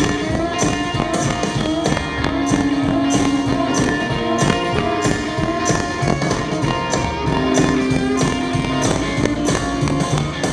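A blues band plays an instrumental passage without vocals: instrument lines over bass and drums with a steady beat.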